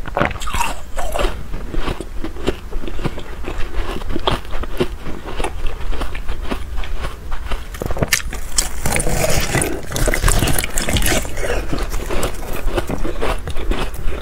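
Close-up crunching of frost-coated ice being bitten and chewed, a steady run of crisp cracks and crunches that grows densest and loudest about eight to eleven seconds in as a fresh bite is taken.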